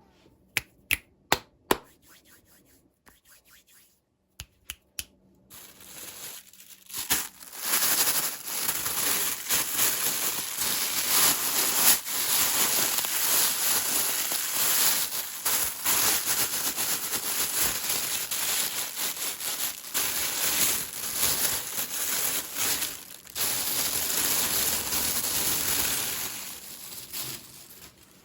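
A few sharp clicks, then about twenty seconds of continuous crinkling and tearing of plastic packaging being opened, fading near the end.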